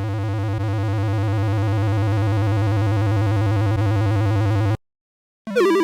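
A steady, low, buzzy synthesizer tone with a fast wobble, growing slightly louder and cutting off suddenly about five seconds in. After a brief silence a different warbling, gliding electronic sound starts near the end.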